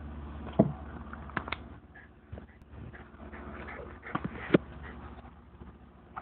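Tennis ball and a dog's paws knocking on the hard plastic bowl of a GoDogGo ball launcher: several sharp separate taps and knocks. A low steady hum fades out about two seconds in.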